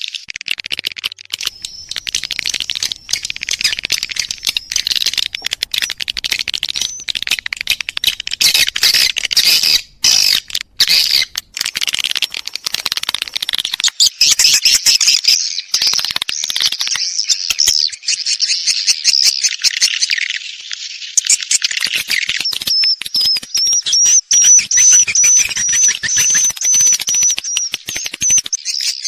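Swiftlet lure call (suara panggil) of edible-nest swiftlets: dense, continuous twittering and chirping over a rapid stream of clicks, with a repeated wavering high trill near the end. It is a breeding-season (birahi) call track played in swiftlet houses to draw the birds in.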